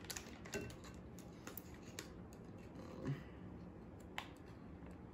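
Faint, scattered clicks and light scrapes of a table knife working a block of cream cheese off its foil wrapper over a glass bowl.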